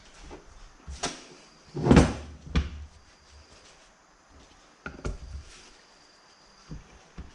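Parts and tools being handled on a workbench: a few separate knocks and clunks. The loudest comes about two seconds in, with another half a second later and a pair around five seconds in.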